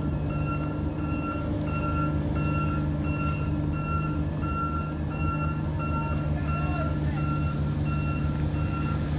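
Back-up alarm on heavy paving equipment beeping steadily, about two beeps a second, over the steady hum of a diesel engine running.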